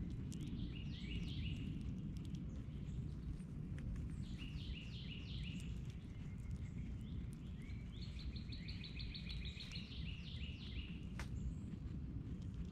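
A songbird singing in bursts of quickly repeated, downward-sweeping whistled notes, three songs about three to four seconds apart, over a steady low background rumble. A single sharp click sounds near the end.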